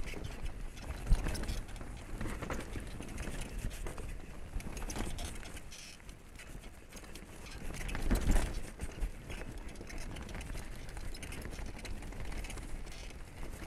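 Freeride mountain bike riding down a rocky dirt trail: the frame, chain and tyres rattle and clatter over loose stones. Heavier knocks come about a second in and again around eight seconds in.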